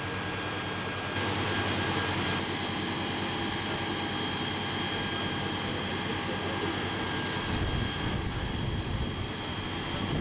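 Fire engine's pump running steadily with a high whine, its hoses charged; a deeper rumble joins about seven and a half seconds in.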